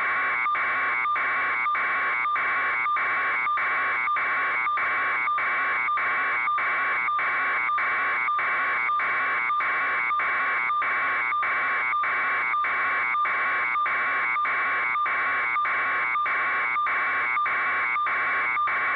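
Electronic alarm beeping steadily, a buzzy tone pulsing about twice a second, unchanging in pitch and level.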